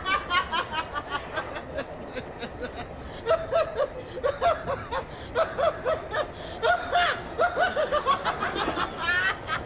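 A man snickering and chuckling to himself in quick repeated breaths of held-in laughter, turning more voiced about three seconds in.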